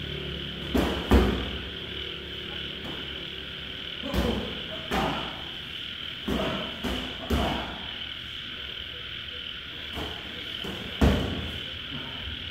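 Sharp smacks of boxing-glove punches landing in sparring, about eight in all, the loudest about a second in and near the end, over a steady high chirping of night insects.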